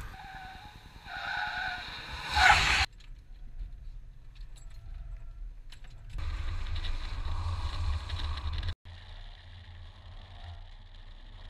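Ford Police Interceptor sedan driven hard through a cone course, its tyres squealing in the first few seconds. After a cut comes a couple of seconds of loud engine and road noise that stops suddenly, then quieter driving.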